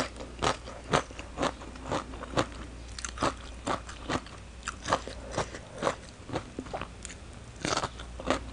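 Crunchy chewing of raw green mango salad with fresh cha-om shoots, a crisp crunch about twice a second.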